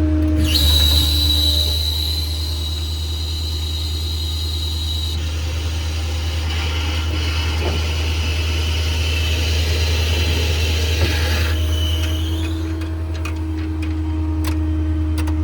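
PTO-driven hydraulic outriggers retracting on an IMT crane service body, the hydraulic system whining high over the steady low hum of the running diesel truck. The whine starts about half a second in, changes around five seconds, and stops about twelve seconds in after a short rising whine, as the outriggers reach their stowed position.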